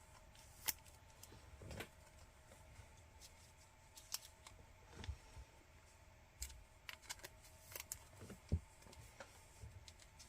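Faint, scattered clicks and short rustles of trading cards being handled, over a low steady hum of room tone.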